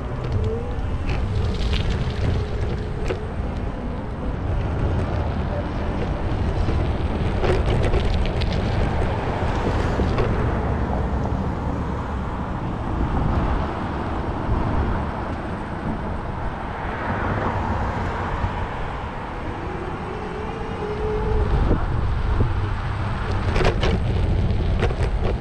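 Wind rumbling on the phone's microphone during a bicycle ride, over the steady noise of street traffic, with a few sharp clicks near the middle and again near the end.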